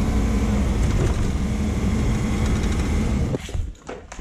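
Armoured vehicle's engine running loud and steady, heard from inside the cab while it drives. It stops abruptly about three seconds in, leaving a few footsteps on rubble.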